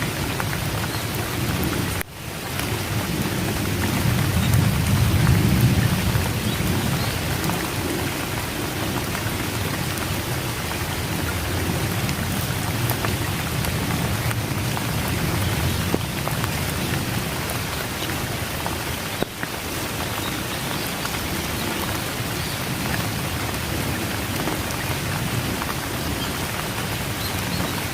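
Steady heavy rain falling, with a low rumble of thunder swelling a few seconds in and then easing. The rain briefly drops out twice, about two seconds in and again past halfway.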